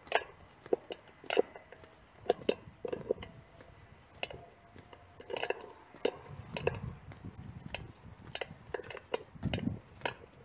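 Irregular small clicks and knocks, a few a second: handling noise on a hand-held phone's microphone while walking.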